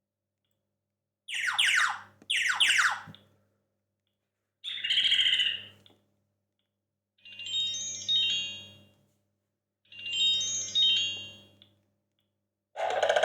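Sony Ericsson W900i mobile phone playing a run of short preloaded alert tones one after another, with silence between them. The run is a pair of quick falling chirps, a short buzzy tone, two clusters of high chiming notes, and another louder tone starting near the end.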